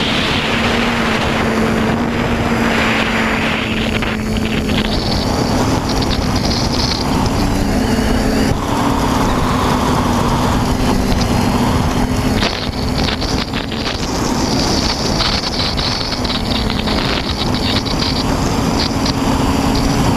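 TBS Discovery Pro quadcopter's electric motors and propellers humming steadily, the pitch stepping up and down a little with throttle, under wind rushing over the onboard microphone.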